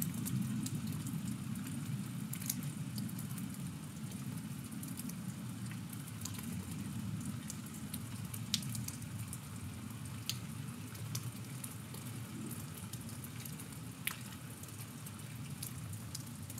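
Rain falling, with scattered sharp drop ticks over a low, steady rumble.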